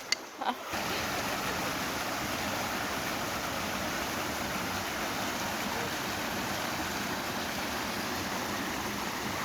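Creek water running steadily over rocks, a constant rushing that comes in under a second in, after a couple of faint clicks.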